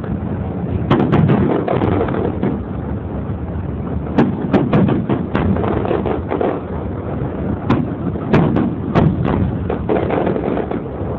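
Aerial firework shells bursting in a string of loud, sharp bangs that come in quick clusters, over a steady low rumble.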